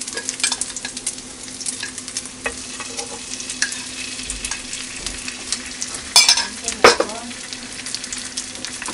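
Oil sizzling and crackling in a hot nonstick frying pan as egg fries. Beaten egg is poured from a cup into the pan and pushed about with chopsticks, with two short, louder noises about six and seven seconds in.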